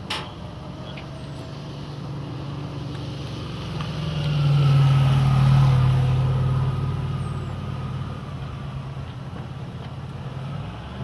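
Motor vehicle engine running, its low hum swelling to its loudest about halfway through and then slowly fading, as a vehicle passes close by. A sharp click right at the start.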